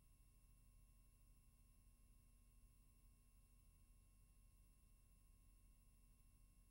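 Near silence: a faint steady hiss with a thin, constant hum of several steady tones. The film has no soundtrack.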